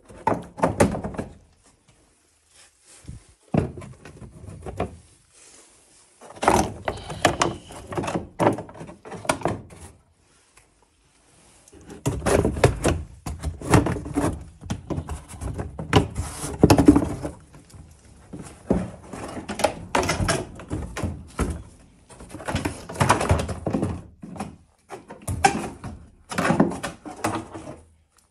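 Plastic wheel arch liner of a Citroen C4 Picasso being pulled and worked out of the front wheel well by hand: flexing, rubbing plastic and knocks in irregular bursts, with short pauses between.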